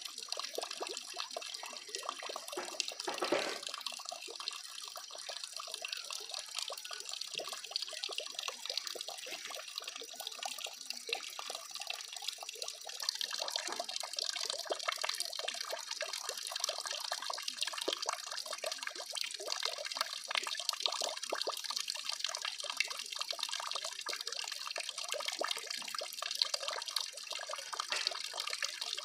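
Steady trickling and splashing of water in a concrete duck trough: a dense patter of fine drips and spatter. There is a single soft knock about three seconds in.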